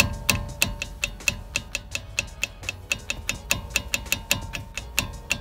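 Volkswagen Vento front brake caliper clicking as it is rocked and tapped by hand, an even run of sharp metallic clicks about five a second. The clicking comes from play at the lower part of the caliper, which the owner suspects is the knock the suspension makes over bumps.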